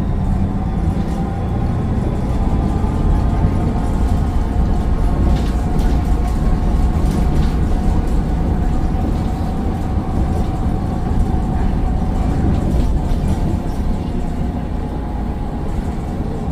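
Mercedes-Benz Citaro O530 bus's Daimler OM906 6.4-litre diesel running under way, a steady low rumble with a thin, steady turbo whine riding above it.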